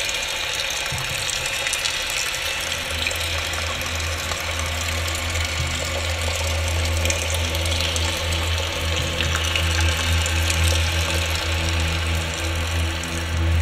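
Live electro-acoustic improvised soundscape: a steady hissing noise texture with a deep low drone that comes in about three seconds in and swells toward the end.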